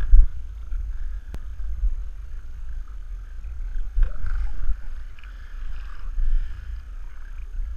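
Kawasaki 650SX stand-up jet ski's two-stroke twin engine running at low speed, under heavy, uneven buffeting on the camera's microphone.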